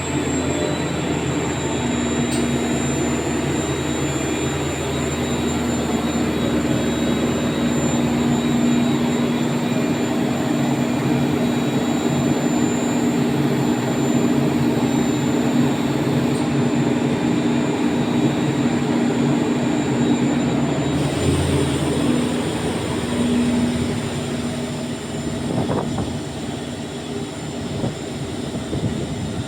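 A 30 kW (40 hp) rotary screw air compressor running: a loud, steady machine hum with a high, thin whine over it. About three-quarters of the way through, the hum's tone changes and the sound eases a little.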